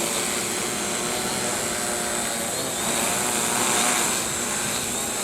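DJI hexacopter's six electric motors and propellers whirring steadily as it hovers in GPS mode, growing louder briefly about three to four seconds in.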